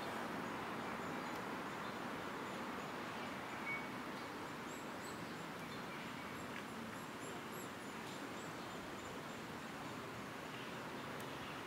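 Outdoor ambience: a steady wash of background noise, with faint, short, high chirps about five to eight seconds in.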